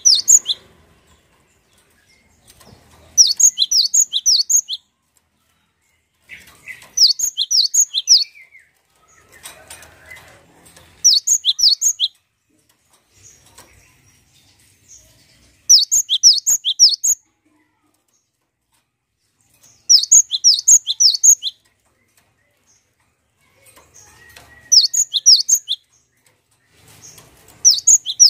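Cinereous tit (gelatik batu) singing: short phrases of quick, high-pitched, repeated notes, about seven phrases with pauses of a few seconds between them.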